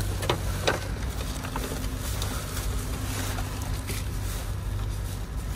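Items being handled and rummaged through in a dumpster: scattered short rustles and knocks, several in the first second and another near the end, over a steady low hum.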